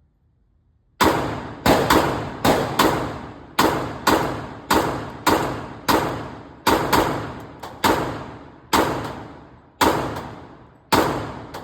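PSA Dagger .40 S&W pistol being fired, about seventeen loud shots at an uneven pace starting about a second in, each ringing out with a long tail.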